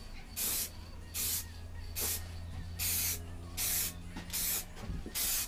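Aerosol can of black spray paint being sprayed in about six short bursts, each a brief hiss, with pauses between them as the coat goes on.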